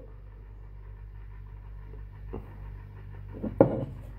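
Steady low hum in a quiet room, with a faint tap a little past two seconds and a short, louder knock near the end as a glass beer bottle is handled and turned in the hands.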